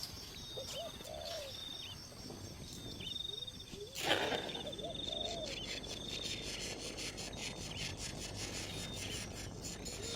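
Natural outdoor ambience: insect trills repeating, each about a second long, with short low curved calls between them and a sharp click about four seconds in.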